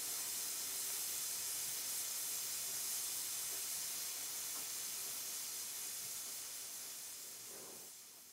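A steady, high hiss that fades away over the last two seconds.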